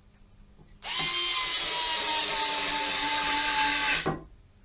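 Fanttik NEX L1 Pro cordless electric screwdriver driving a screw: its motor starts about a second in and whines steadily for about three seconds, dropping slightly in pitch, then stops suddenly.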